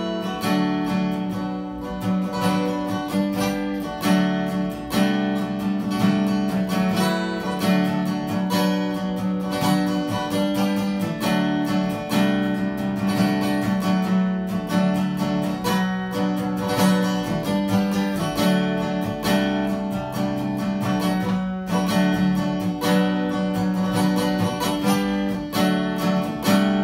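Acoustic guitar strummed in steady, ringing chords, tracked into a studio microphone.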